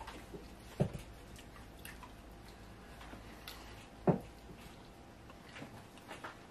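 Close-up eating sounds of fufu and egusi soup eaten by hand: small wet squishes and mouth smacks as fingers pinch off the soft dough and it is chewed. Two short low thumps stand out, about a second in and about four seconds in, the second one the loudest.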